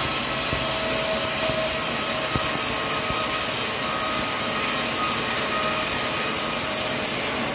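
Sawmill saw cutting through a coconut trunk: a steady, dense cutting noise with a faint high whine, which changes abruptly just before the end.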